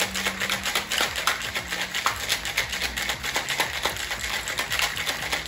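Ice rattling inside a metal cobbler cocktail shaker that is being shaken hard by hand, a fast, dense, continuous clatter, as a cocktail is mixed over ice.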